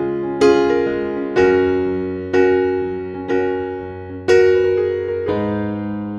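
Background music: keyboard chords struck about once a second, each left to ring and fade before the next.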